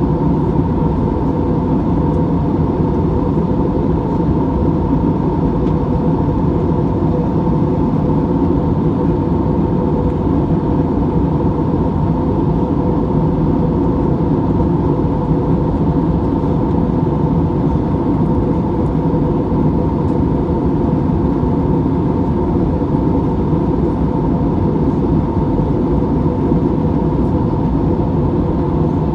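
Steady jet-airliner cabin noise in cruise, heard inside the cabin of an Airbus A320-family jet: an even rumbling drone of engines and airflow with a steady hum on top, unchanging throughout.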